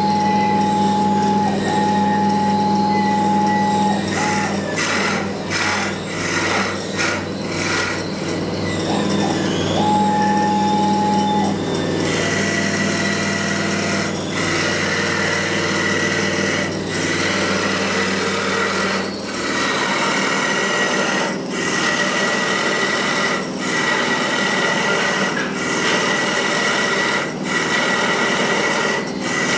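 VST 101 CNC wood lathe running: for about the first twelve seconds its motors give steady whining tones that stop and start, then the cutter works the spinning wood with a steady rasping and a high whine, dipping briefly at regular intervals of a second or so.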